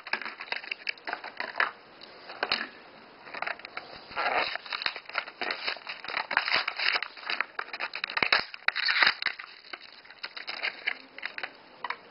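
Hot Wheels blister packs being ripped open by hand: the plastic blister and cardboard backing crinkle and tear in irregular crackles and rips.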